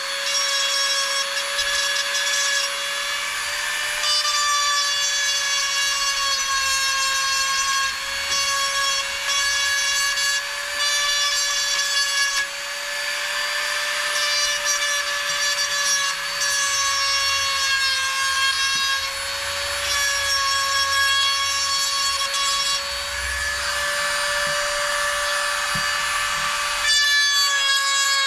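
Corded handheld rotary tool running at high speed with a steady whine, its grinding bit working the inside of a 2-inch PVC fitting to widen it so the pipe slides through without sticking. The pitch wavers slightly and the level dips now and then as the bit bears on the plastic.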